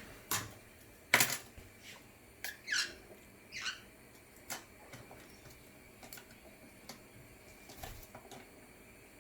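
A scatter of sharp taps and knocks, the loudest about a second in, with two short squeaky chirps from a caique parrot a little later.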